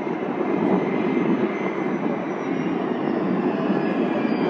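Boeing 767-200 airliner's twin jet engines on short final approach, a steady deep roar with a faint high turbine whine above it.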